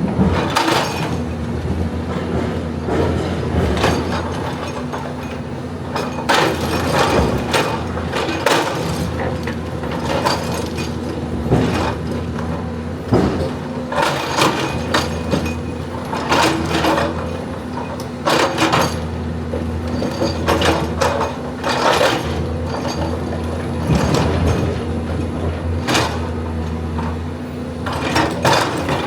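Excavator's diesel engine running steadily, with repeated irregular clanks and scrapes of the machine at work.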